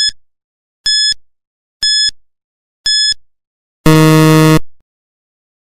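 Quiz countdown-timer sound effect: four short high beeps about a second apart, then a longer, lower buzz that signals time is up.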